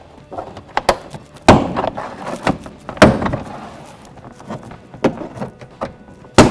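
Plastic retaining clips of a Toyota Tundra interior door panel popping loose as the panel is pried off with a trim tool: a series of sharp snaps and thunks, the loudest near the end.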